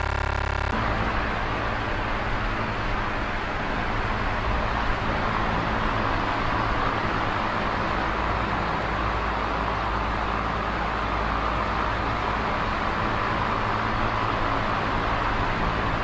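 Electric fan running steadily, a constant whirring rush of air with a low hum. A steadier humming tone in the first half second cuts off abruptly, and the even whir goes on unchanged after it.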